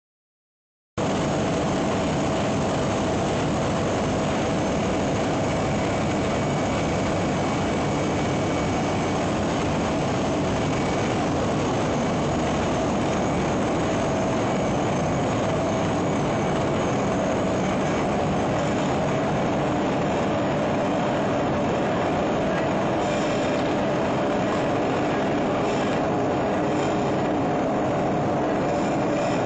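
Steady din of the running machinery on a steel welding-wire copper-plating line, a continuous noise with a faint steady tone through it, starting suddenly about a second in.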